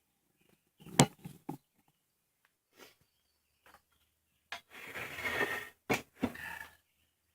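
Handling noises from a chop saw and its power cord being worked over: a sharp knock about a second in, a few lighter clicks, then a stretch of rustling just past the middle followed by two more knocks.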